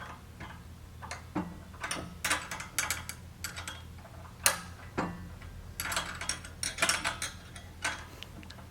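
Two 13 mm wrenches clicking and clinking on a steel bolt and nut as the bolt is tightened, in irregular clusters of sharp metallic ticks, with one louder clink about four and a half seconds in.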